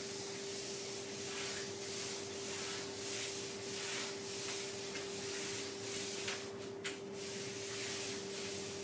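Charcoal scraping across a large sheet of paper in repeated sweeping circular strokes, about two a second, over a steady hum. A sharp click near the end.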